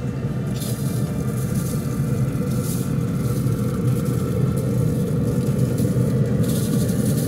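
A grill running with a steady, loud low rumble, with bursts of high hiss from seasoning being shaken out of a shaker bottle over the meat.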